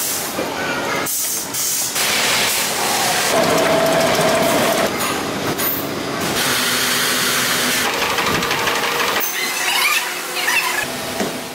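Tyre-factory machinery running, with a steady hiss and a faint steady tone partway through, and a few squeaks near the end. The sound changes abruptly several times.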